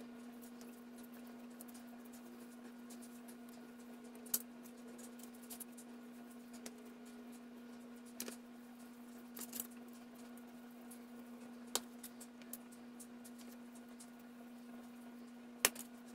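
Faint handling noise as raw ground beef is squeezed and rolled into balls in a foam tray: a few scattered soft clicks and ticks, the sharpest about 4 seconds in and near the end, over a steady faint hum.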